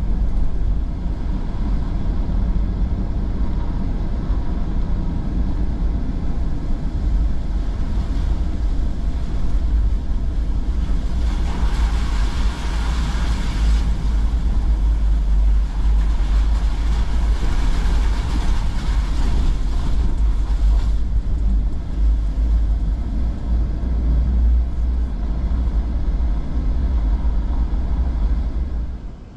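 Truck driving on a dirt road, heard from inside the cab: a steady low rumble of engine and tyres. From about a third of the way in, a hiss over the rumble grows louder for roughly ten seconds while the truck passes through a rock tunnel, then drops back.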